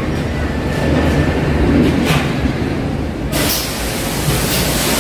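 Single-post car-wash lift raising a car, with a steady low mechanical rumble. A loud hiss starts about three seconds in.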